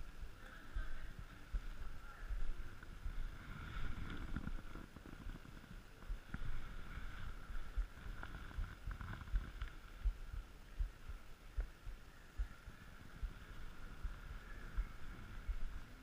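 Handling noise from a chest-mounted GoPro Hero3 as the wearer walks and leans: irregular low thumps and rubbing from body and clothing against the camera, over a faint steady high hum.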